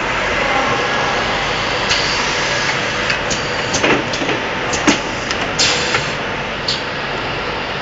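Automatic screen printing machine running: a steady mechanical hum with scattered clicks and knocks, most of them in the middle stretch.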